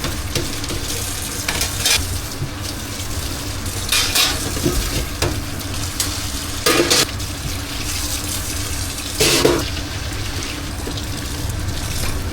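Kitchen work: short bursts of scraping or clatter from pots and utensils every two or three seconds, over a steady low background hum with a watery, sizzling hiss.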